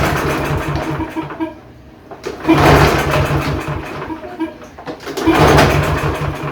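Briggs & Stratton 550EX single-cylinder mower engine being cranked with its recoil pull-starter, three pulls about two and a half seconds apart. Each pull spins it over briefly without it catching: it has no fuel and the spark plug is not connected.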